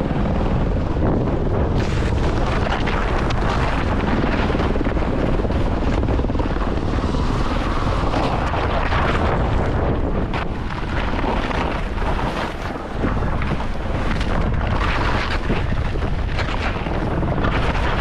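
Helicopter rotor and engine noise, steady and loud, mixed with wind rushing over the microphone in hissing gusts that swell and fade.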